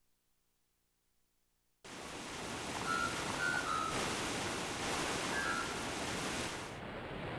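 Karaoke player sound effect: after about two seconds of silence, a dense, steady rushing noise starts abruptly, with a few short high chirps in the middle of it.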